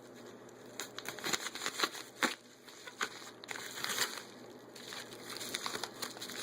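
A small package being unwrapped by hand, its packaging crinkling and rustling in irregular bursts, with small clicks and taps.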